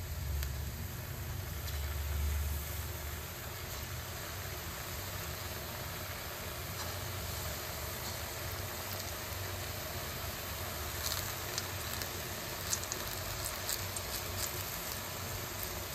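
Gram-flour pakoras frying in hot mustard oil, a steady sizzle. A low hum is strongest in the first few seconds, and light crackles and pops from the oil come in from about eleven seconds on.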